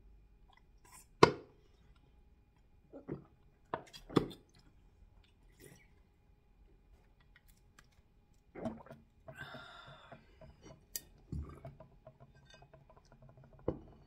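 Close-miked drinking and eating sounds: gulps and sharp wet clicks as she swallows drink from a plastic bottle, the loudest a little over a second in, followed by quieter closed-mouth chewing, lip smacks and swallowing.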